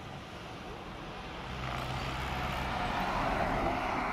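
APSRTC bus approaching and passing close by on the road, its engine hum and tyre noise growing steadily louder and loudest as it goes past near the end.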